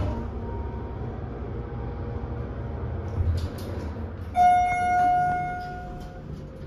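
Schindler 300A hydraulic elevator car running with a low hum and coming to a stop with a few clicks about three seconds in, then a single loud arrival chime about four seconds in that fades away over nearly two seconds as the doors open.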